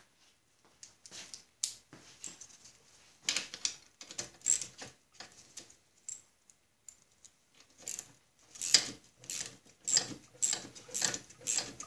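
Light metal clinks of a socket and small ratchet being picked up and fitted, then a small ratchet clicking in quick repeated strokes from about eight seconds in, backing off the half-inch nuts on a walk-behind mower's differential.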